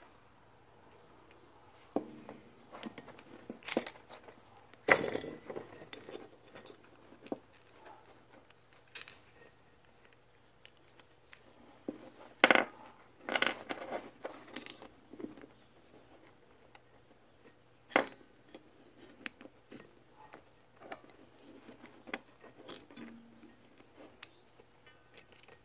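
Scattered clicks, clinks and knocks as a metal-and-plastic choke thermostat housing and battery test-lead clips are handled on a workbench. A few knocks are much louder than the rest.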